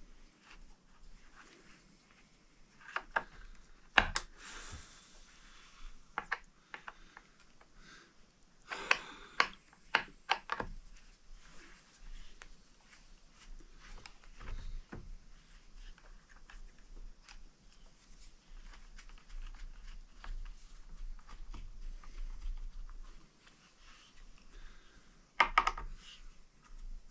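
Scattered small metal clicks and clatters, in a few short clusters with quiet stretches between, from hand work on a Husqvarna Rancher 455 chainsaw: a screwdriver turning the chain-tensioner screw while the bar and chain are shifted into place.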